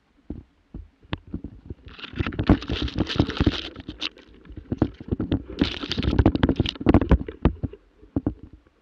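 Close handling noise on a rifle-mounted camera: a run of knocks and scrapes, with two spells of louder rustling as the gun is moved.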